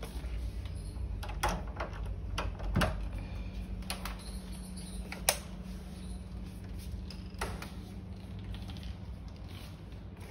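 A door being handled: several separate sharp clicks and knocks of a metal lever handle and latch as the door is opened and shut, the sharpest about five seconds in. A steady low hum runs underneath.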